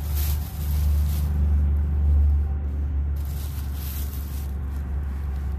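Thin plastic bag crinkling and rustling in two bouts as hands work it, about a second long at the start and again past the middle, over a steady low rumble.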